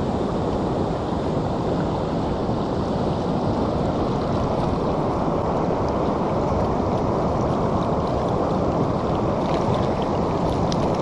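Steady rush of river water flowing, with a few faint clicks near the end.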